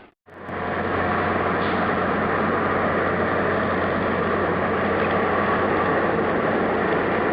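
Steady vehicle running noise with a constant low hum, starting abruptly after a split-second gap.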